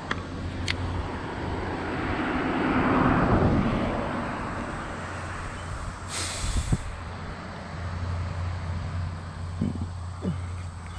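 Road traffic: a vehicle drives past, its noise swelling to a peak about three seconds in and fading away, over a steady low hum of more traffic. A short hiss comes about six seconds in.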